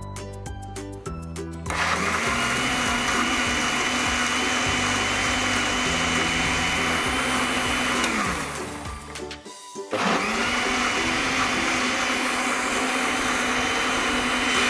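Electric blender blending a mango smoothie of mango, milk, sugar and yogurt: the motor starts with a rising whine about two seconds in and runs steadily, winds down and stops around nine seconds in, then starts again a moment later and runs on.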